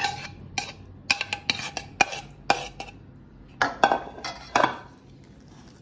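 Metal spoon clinking and scraping against a stainless steel bowl as thick yogurt is worked into it: a run of sharp clinks in the first half, then a few longer scrapes.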